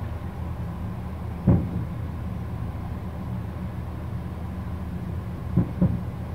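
Distant aerial firework shells bursting: one boom about a second and a half in, then two booms in quick succession near the end, over a steady low rumble.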